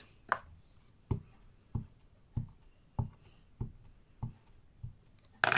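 Ink pad dabbed repeatedly onto a clear stamp to ink it: about eight short soft taps, evenly spaced at roughly one every two-thirds of a second.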